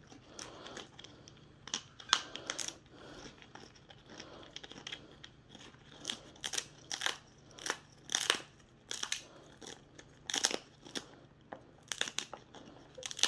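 Macaw biting and crunching food in its beak: irregular sharp crunches and clicks, with a few louder snaps.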